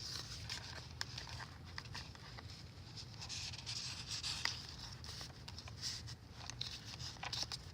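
Paper and cardstock rustling and sliding, with scattered light taps and clicks, as the pages and tucked-in cards of a handmade junk journal are handled. A steady low hum runs underneath.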